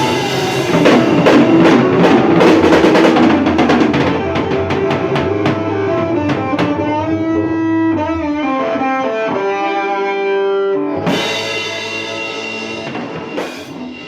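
Rock music on electric guitar and drum kit. The drums stop about halfway, and the guitar notes ring on, bend in pitch and fade out near the end, like the close of a song.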